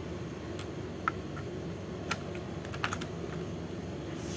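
Scattered light clicks and taps as a DDR3 RAM module is handled with tweezers, pulled from one DIMM slot and fitted into the other on a desktop motherboard, over steady background noise. The RAM is being moved to test whether the board's repeated restarting is a RAM fault.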